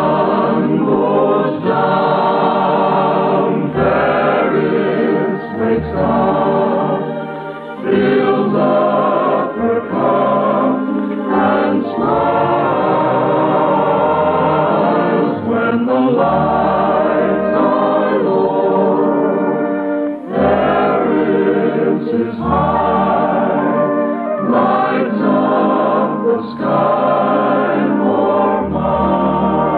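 Choir singing with orchestral accompaniment, heard through the narrow, muffled band of an old radio transcription.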